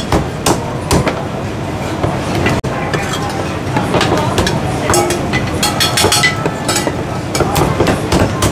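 Heavy Chinese cleaver chopping roast goose on a thick wooden chopping block: a run of sharp chops at irregular spacing, over a steady background din of a busy shop.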